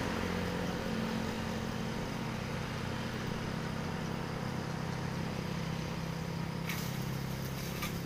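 Steady low engine hum, like a motor vehicle idling, over outdoor background noise, with two brief sharp noises near the end.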